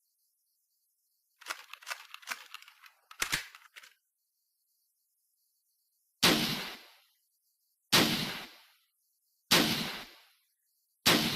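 M40 bolt-action sniper rifle sound effect: a quick run of clicks and clacks, then after a pause four single shots about a second and a half apart, each ringing out briefly.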